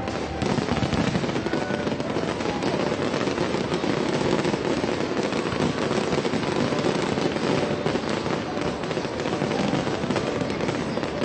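Aerial fireworks bursting many at a time: a dense, unbroken barrage of bangs and crackling.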